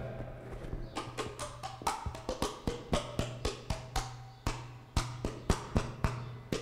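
Hand claps in a steady rhythm, about four a second, over a low steady hum.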